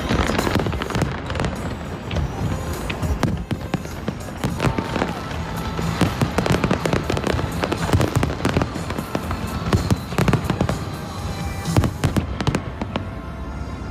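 New Year's fireworks display going off: a dense run of bangs and crackles, one after another, with music playing underneath.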